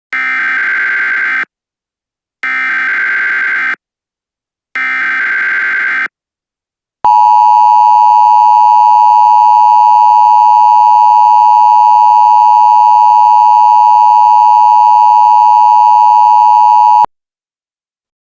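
Emergency Alert System SAME header: three screeching digital data bursts, each about a second and a half long. Then a loud, steady two-tone EAS attention signal sounds for about ten seconds and cuts off abruptly, announcing a new alert message.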